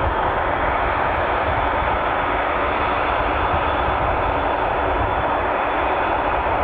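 Airbus A380's four jet engines running at taxi power as the airliner rolls slowly toward the listener: a steady, even rushing jet noise over a low rumble.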